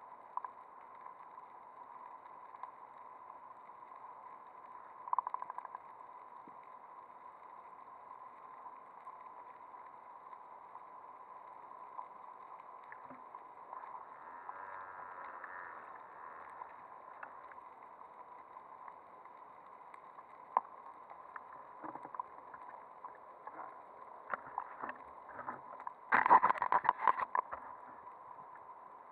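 Muffled underwater ambience heard through a waterproof camera housing: a steady hiss with a faint steady tone and scattered clicks. Near the end comes a loud burst of crackling, bubbling noise as air bubbles stream past the camera.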